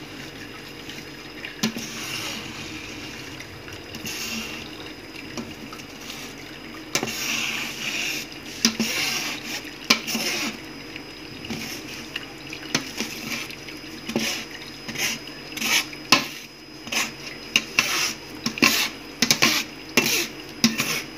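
Whey from vinegar-curdled milk trickling through a fine metal mesh strainer while a steel spoon stirs and presses the curds. The spoon scrapes and clicks against the mesh, and from about halfway on the clicks come thick and fast. Working the spoon clears the clogged holes so the whey runs through.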